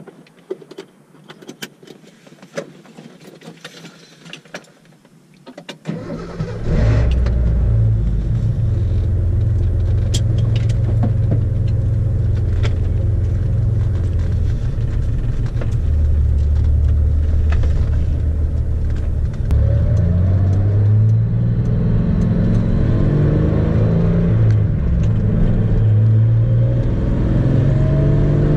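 Inside the cabin of a Datsun 280Z: a few light clicks, then about six seconds in the L28 straight-six starts. It idles steadily, and from about twenty seconds in its pitch rises and falls as the car drives off.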